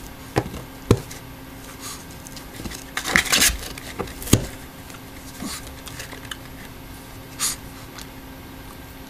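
A small dog scratching and bumping about inside a cardboard box. There are a couple of dull knocks at first, a burst of scratching about three seconds in, a sharper knock a second after that, and one more brief scrape near the end.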